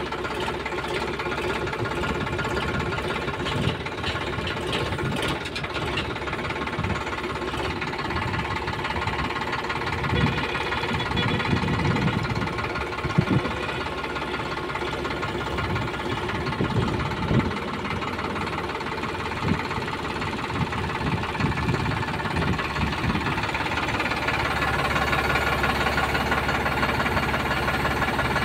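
Sonalika DI-50 tractor's diesel engine running steadily while working a front-end loader with its bucket raised high. A few sharp knocks come through in the middle, and the engine runs louder over the last few seconds.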